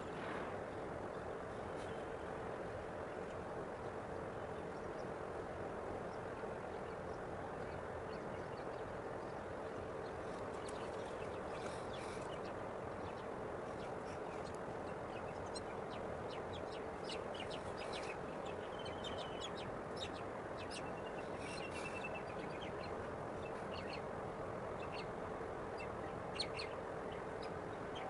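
Scattered short bird chirps and calls, mostly in the second half, over a steady background hum with a faint held tone.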